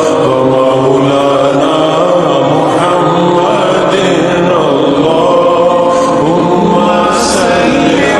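A naat, an Urdu devotional song in praise of the Prophet, sung in a slow chanting style by layered voices holding long notes.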